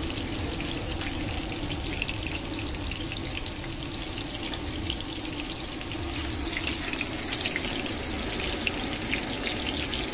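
Chicken kabab pieces sizzling in oil on a large flat iron griddle: a steady hiss with many small crackling pops.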